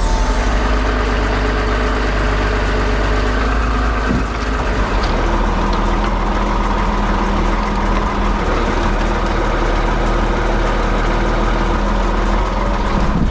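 Heavy diesel engine running steadily under a strong low hum, its note shifting slightly about four seconds in and again past the middle.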